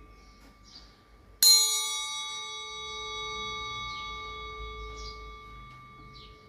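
A bronze (kansa) utensil struck once about a second and a half in, ringing with a bright, many-toned ring that fades slowly over several seconds; the ring of an earlier strike is still sounding before it. The long, sweet ring is the sign of genuine bronze.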